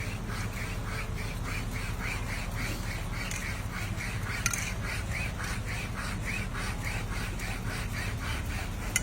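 Wire saw drawn back and forth through a horn, an even rasping at about three strokes a second. The wire heats as it cuts, burning and cauterizing the horn.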